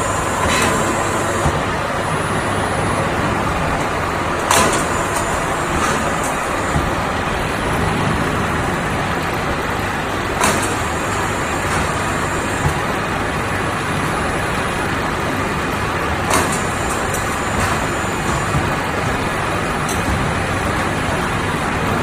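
Automatic HVAC duct production line running: a loud, steady machine noise with short, sharp knocks every few seconds.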